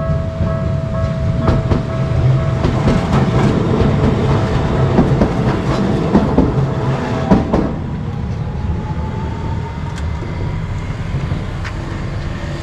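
Japanese level-crossing warning bell ringing while an electric train passes, its wheels clattering over the rail joints with a heavy rumble. The bell and most of the clatter stop together a little past halfway, and a rising whine follows.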